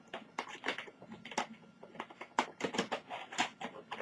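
Irregular plastic clicks and clatter of an Acer TravelMate 201T laptop keyboard being worked loose and lifted from its chassis.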